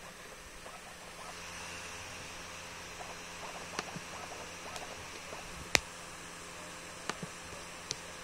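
A few sharp clicks over a steady hiss and light scratchy rustling; the loudest click comes about two thirds of the way in, with smaller ones before and after it.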